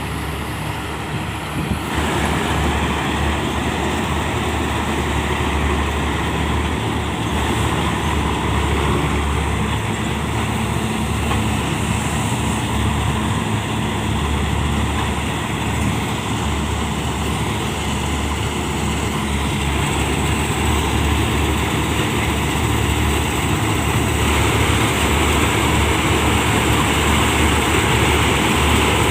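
Heavy diesel farm machinery running steadily under load, getting louder about two seconds in.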